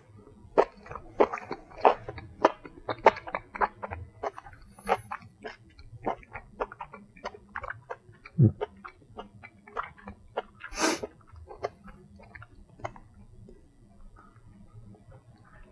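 A person chewing a mouthful of sautéed matsutake mushroom: a run of small irregular wet clicks from the mouth, with a short puff of breath about eleven seconds in.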